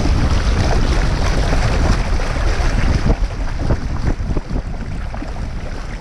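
Water rushing and splashing along the hull of a Westerly Fulmar sailing yacht under way, with wind buffeting the microphone. The rush eases off in the second half.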